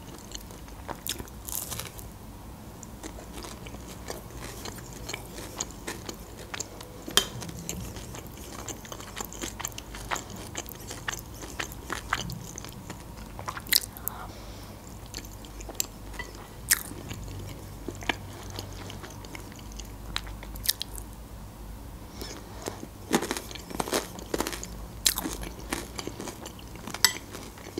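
Close-miked eating: crunching bites of breaded, fried chicken cutlet and chewing, with mouthfuls of creamy broccoli soup, giving many short, sharp mouth clicks and crunches scattered throughout.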